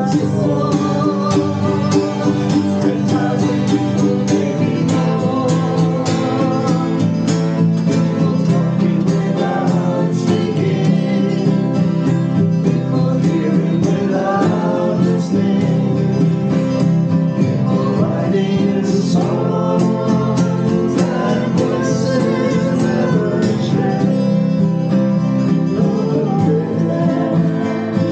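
Acoustic country-style music led by guitar, playing steadily.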